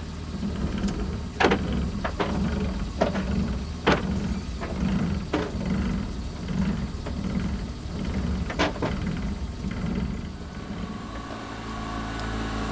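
Sailboat's engine running steadily under way, with a regular throbbing and several sharp metallic clanks from the deck gear as the anchor is weighed. The clanks and throbbing stop about ten seconds in, leaving the engine's even hum.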